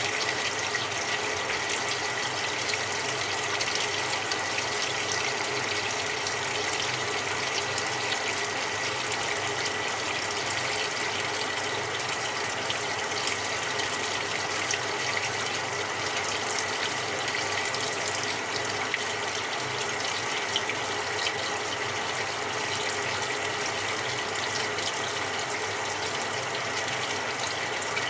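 Samsung 6.5 kg top-loading washing machine filling its drum with cold water: a steady rush of incoming water, with a faint constant high tone over it.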